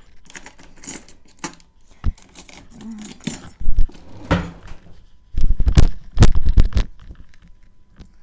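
Dishes and metal utensils clinking and clattering: a run of sharp knocks and jingles, loudest in a cluster about five to seven seconds in.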